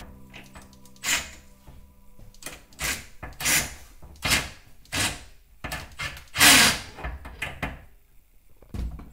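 Irregular wooden knocks, thuds and scrapes from work on a folding wooden attic ladder and its ceiling hatch: about a dozen separate hits, the loudest about two-thirds of the way through.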